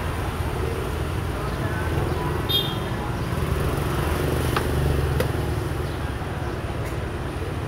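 Steady low rumble of street traffic, with two sharp clicks about half a second apart a little after the middle as a xiangqi move is played: a piece set down on the wooden board and the chess clock pressed.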